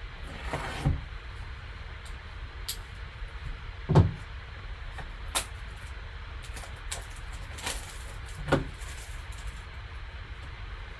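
Hands handling and opening a sealed trading-card box: scattered light clicks and a rustle of packaging, with three dull thumps as the box is knocked or set down, the loudest about four seconds in. A low steady hum underneath.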